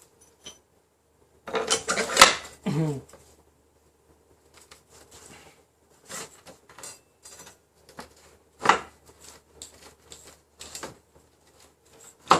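Scattered metal clinks and knocks from a motorcycle front axle rod and wheel parts being handled and fitted, with a louder cluster of clatter about two seconds in.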